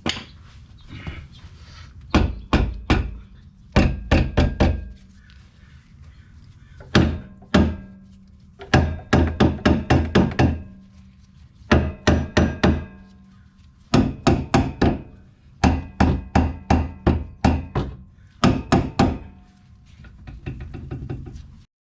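Hammer blows on metal in bursts of three to six quick strikes, repeated every second or two, while parts of a Porsche 911's rear torsion-bar suspension are knocked loose.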